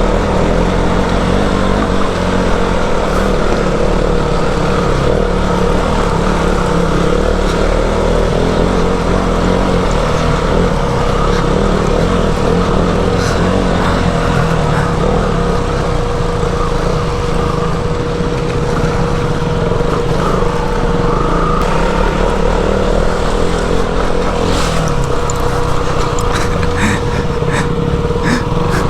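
Motorcycle engine running steadily under way on a rough dirt track, with a steady whine and a low rumble; a few sharp clicks come near the end.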